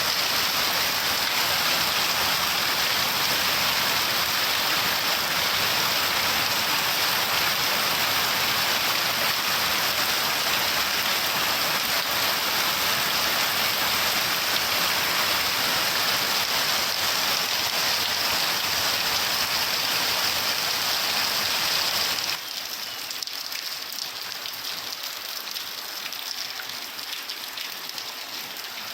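Steady, dense rainfall hissing without a break. About 22 seconds in it drops abruptly to a quieter, lighter rain.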